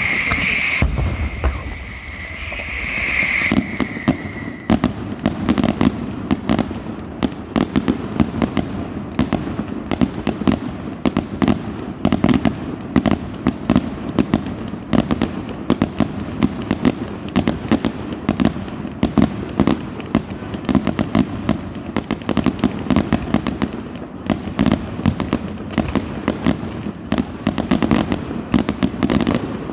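Fireworks going off. A high whistling firework sounds for the first four seconds or so, then a dense, continuous barrage of rapid crackling bangs runs on.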